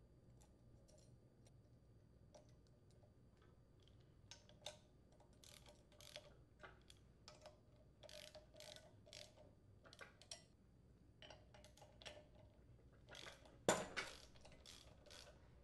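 Socket ratchet clicking in short runs, with light metal clinks, as the bolts and centre screw of a steel flywheel puller are turned down on a small-engine flywheel. A louder metallic knock comes near the end.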